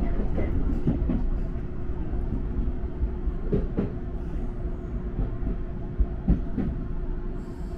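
Electric train running on the Hakone Tozan Railway, heard from inside the front car: a steady rumble of wheels on the track with a constant hum. A few clacks over rail joints come around two-thirds of the way through.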